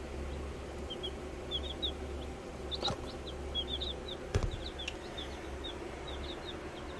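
Young chicks peeping: many short, high peeps scattered through, over a steady low hum, with two brief knocks, about three and four and a half seconds in.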